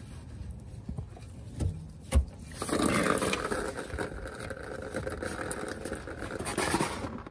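Two knocks as the quick-connect fuel line fitting is worked apart, then a steady patter of diesel fuel running out of the disconnected line and splashing down.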